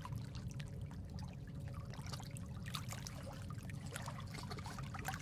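Quiet, steady trickling water with small scattered drips.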